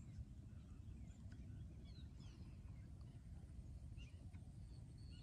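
Near silence: a faint low rumble of wind on the microphone, with a few faint, short bird chirps in the distance.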